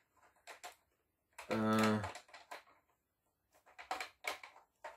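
Hard plastic toy blaster parts clicking and knocking as they are handled and a grip is fitted on, with a quick run of sharp clicks near the end. A short hummed 'hmm' from a person's voice comes about one and a half seconds in.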